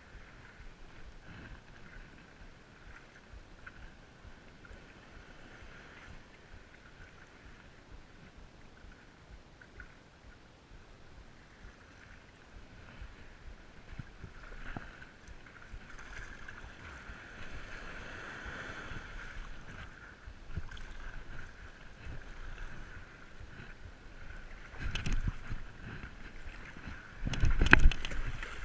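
Water splashing and lapping around a stand-up paddleboard under way, picked up by a chest-mounted camera. It grows louder in the second half, and two loud thumps come near the end.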